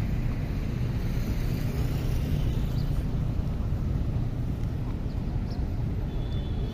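Steady low rumble of outdoor city background noise, with no distinct event standing out.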